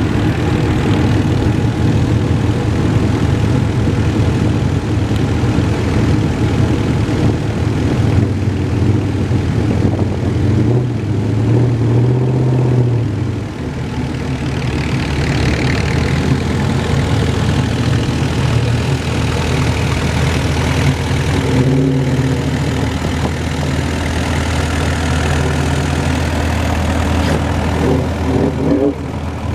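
Engines of a vintage farm tractor and classic cars running at low speed as they roll slowly past in a line. The pitch rises briefly twice as they pull forward.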